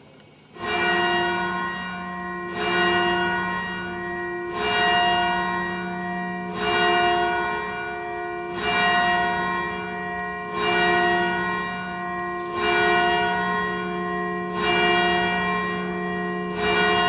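A single church bell tolling, struck nine times about every two seconds, each stroke ringing on with a steady low hum into the next.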